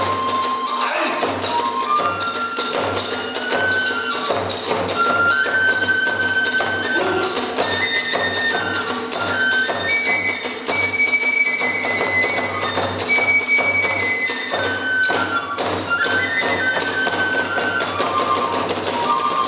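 Kagura hayashi ensemble playing: a transverse bamboo flute holds a stepping melody that climbs to its highest notes around the middle and comes back down, over fast, driving drum beats and clashing hand cymbals.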